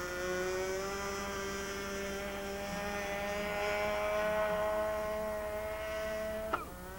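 Small model aircraft engine running at high throttle through a takeoff run, its note creeping slightly higher. Near the end a sharp click, after which the engine note wavers and drops.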